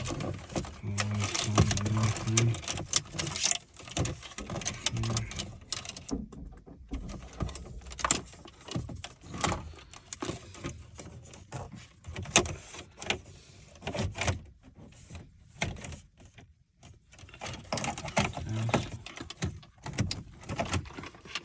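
Screws being driven and plastic dashboard trim and a radio frame being handled: a run of clicks, knocks and rattles, with a few short whirring spells in the first few seconds.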